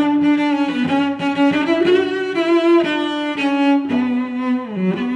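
Background music on bowed strings: held notes, cello-like, stepping from one note to the next every half second to a second.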